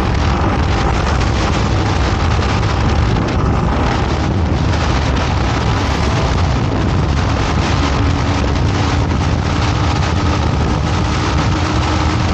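Motorcycle riding along at steady speed, heard from the rider's position: a constant rush of wind on the microphone over the running engine.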